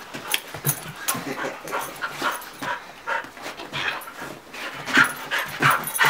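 Border collie panting hard with a tennis ball in her mouth: short breaths about two or three a second, loudest about five seconds in.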